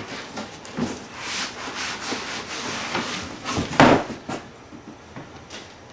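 Cardboard shipping box being handled and opened: cardboard rubbing and scraping, with several knocks and one loud thump about four seconds in.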